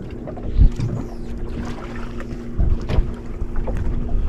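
Small fishing boat out on the water: a steady low hum, with a few dull thumps about half a second in and again near three seconds.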